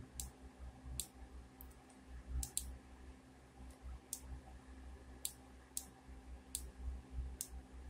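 Computer mouse clicking about ten times at irregular intervals, quiet, over a low rumble and faint hum.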